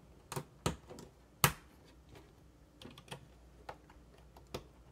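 Small hard plastic LEGO pieces clicking and knocking as they are handled and pressed onto an axle. The clicks come irregularly, about seven of them, with the sharpest about a second and a half in.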